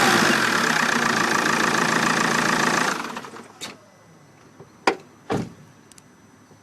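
Vauxhall Vectra 1.9 CDTi diesel engine running just after starting, then stopping about three seconds in. A few short knocks follow.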